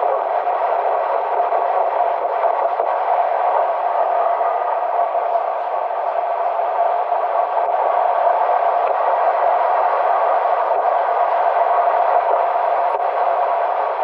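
Steady road and tyre noise of a car cruising on an expressway, heard from inside the cabin as an even hiss with a few faint ticks.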